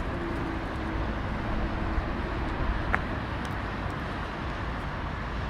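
Outdoor city street ambience: a steady low rumble of traffic and general street noise, with one short sharp sound about three seconds in.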